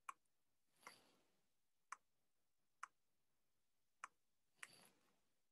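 Near silence with four faint, sharp clicks about a second apart, and two soft brief rustles, about a second in and near the end.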